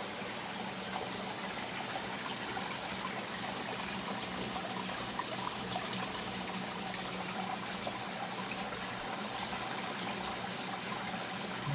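Steady running water, trickling and splashing without a break, over a faint steady hum.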